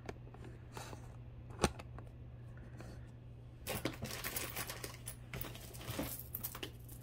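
Costume jewelry being handled: a single sharp click about a second and a half in, then about three seconds of rustling with light clicks and clinks from about four seconds in.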